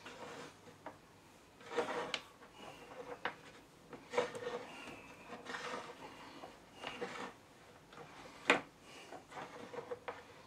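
Handling noise as a mains power cord is pushed and pulled through the back of a valve radio's cabinet: irregular rubbing and scraping strokes with a few light knocks, and one sharp click near the end.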